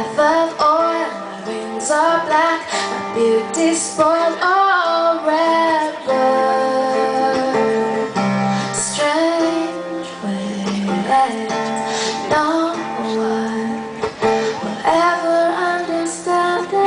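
A woman singing a slow melody, holding long notes, over guitar accompaniment in a live performance.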